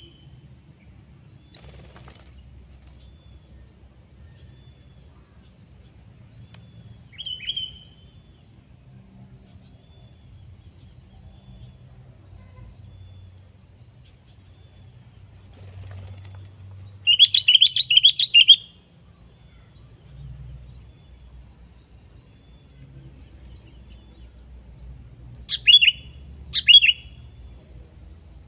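Sooty-headed bulbul (kutilang) calls: a single short call about seven seconds in, a quick run of sharp chirps just past the middle that is the loudest part, and two single calls near the end. A faint steady high hiss sits under them.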